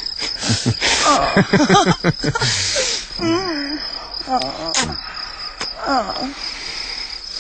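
Steady high-pitched chirring of crickets, laid in as an outdoor sound effect, under short wordless voice sounds that come several times.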